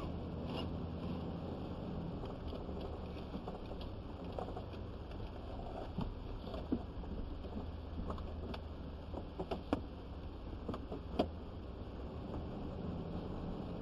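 Truck driving along, its engine and road noise a steady low rumble heard inside the cab, with a few light clicks now and then.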